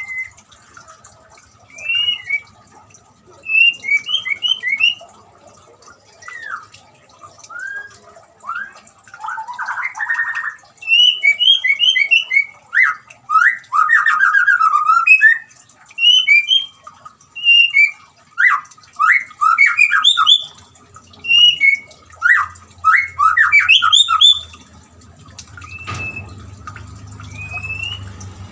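White-rumped shama (murai batu) singing a long, varied run of clear whistled phrases, notes gliding up and down, with a harsh buzzy phrase about ten seconds in.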